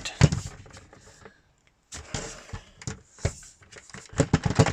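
Hard plastic clicking, knocking and rubbing as the parts of a Shark WandVac handheld vacuum are handled. The vacuum is switched off. There are a few knocks at the start, a short quiet gap, then rustling and a quick run of clicks near the end.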